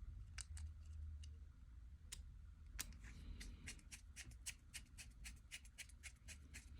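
Faint, quick clicks and ticks of a small Phillips screwdriver driving the screw back into a Honda remote head key's plastic shell. The clicks are sparse at first and come several a second from about halfway on.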